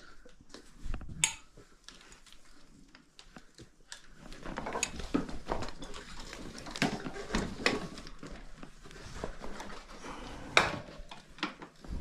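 Metal bike parts and hand tools clinking and knocking as they are handled, with a sharp knock about a second in, a busy stretch of clattering in the middle, and another sharp knock near the end.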